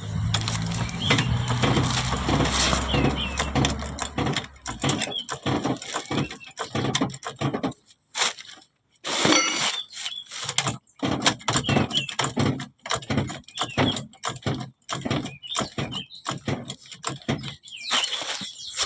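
Hand tools and metal parts clanking, knocking and scraping in quick irregular strokes while a car's front wheel is being stripped, with a few short squeaks; a low rumble runs under the first four seconds.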